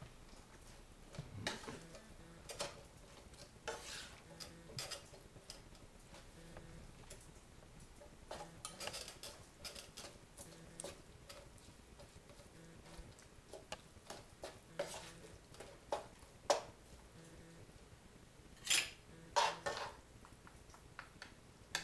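Wooden spatula and spoon scraping and knocking against a wok as fried rice is stirred and tossed. The strokes come irregularly, with a few louder knocks near the end.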